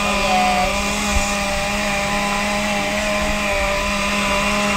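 Countertop blender motor running steadily at speed, blending fruit and milk into a smoothie: a loud, even whir with a steady hum.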